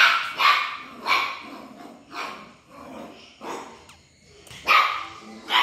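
Small dog barking repeatedly: about seven short, sharp barks at uneven intervals, the loudest at the start and again near the end.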